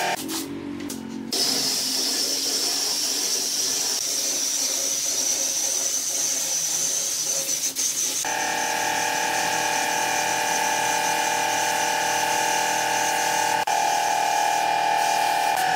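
Gravity-feed air spray gun hissing steadily as it sprays finish onto pine wood, over a steady motor hum. The sound drops briefly just after the start, and the hum grows louder about halfway through.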